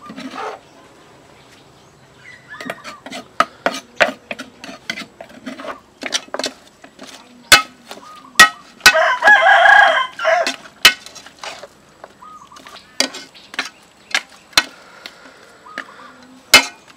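Metal ladle clinking and knocking against an aluminium pot as raw fish and chopped herbs are stirred, in many sharp irregular strikes. A rooster crows loudly once for about a second and a half near the middle.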